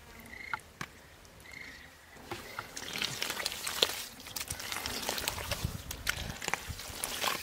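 Bare hands digging and squelching in wet mud while hunting for an eel, a run of wet crackling and sucking sounds that starts about two seconds in. A few faint short chirps come before it.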